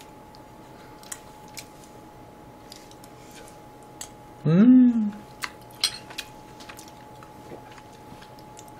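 Scattered light clicks of a metal spoon and eating sounds as a spoonful of rice and side dishes is taken and chewed. About halfway through comes a short hummed "mm" whose pitch rises then falls, the loudest sound, and a faint steady tone runs underneath.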